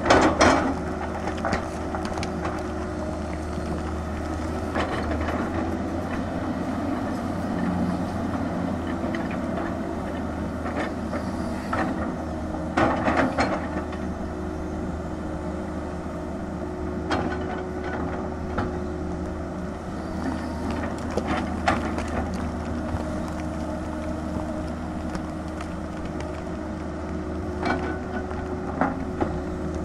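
A Tata Hitachi crawler excavator's diesel engine runs steadily under digging load. Its bucket knocks and scrapes against rock and earth several times, loudest right at the start and about 13 seconds in.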